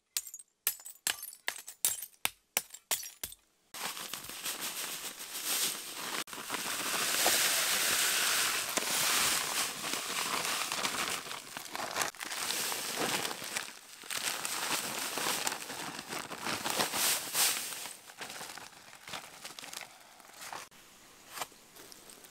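A hammer striking a bed of broken glass bottles, about three sharp, crunching blows a second, for the first few seconds. The sound then switches suddenly to a long, continuous rushing hiss as dry white granular fill is poured onto the glass shards, loudest in the middle and tapering off toward the end.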